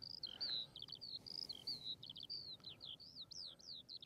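Eurasian skylark singing: a faint, continuous stream of short chirps, quick trills and slurred whistles that rise and fall.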